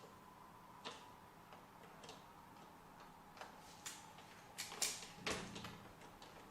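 Scattered light clicks and taps at uneven intervals, with a cluster of louder ones about five seconds in.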